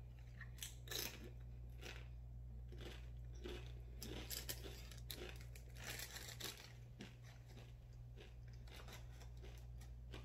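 The Paqui One Chip, a tortilla chip, crunching as it is bitten and chewed, mixed with the crinkling of its foil packet being handled, in irregular crackles that are densest about a second in and again from about four to six and a half seconds. A steady low hum runs underneath.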